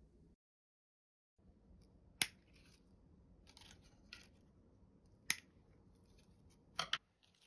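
Scissors snipping leaf stems off a potted pachira (money tree): two sharp snips about three seconds apart, then a quick double snip near the end, with softer handling noises in between.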